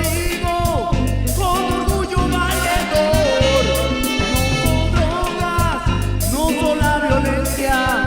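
Cumbia-rock music: an instrumental passage in which a lead melody bends and slides in pitch over a steady bass and percussion beat.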